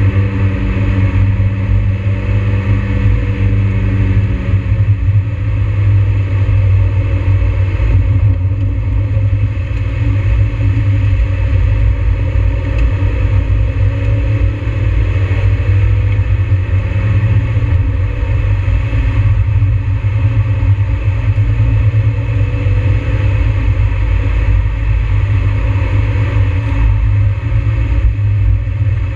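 Mazda NB Miata's four-cylinder engine heard from inside the cabin, its pitch rising and falling as the car accelerates and slows, over a steady low road drone.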